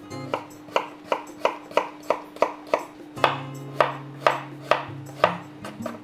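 Chef's knife chopping an onion on a wooden cutting board: a run of about a dozen even knocks, roughly three a second, stopping shortly before the end. Background music with a held tone plays underneath.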